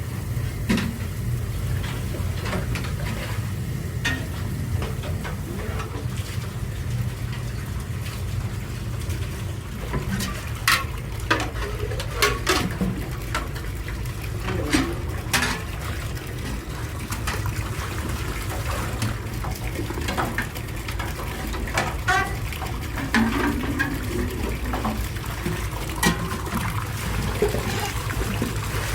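Factory machinery running with a steady low hum, with scattered short clicks and knocks throughout.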